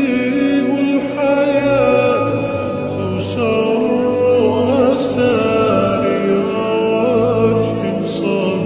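Voice singing an Arabic devotional song (nasheed) in long, ornamented melismatic lines over a low steady hum.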